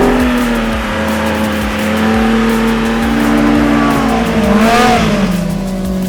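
Off-road truck engine running on the move, revving up and back down about four and a half seconds in, with a burst of hiss at the peak.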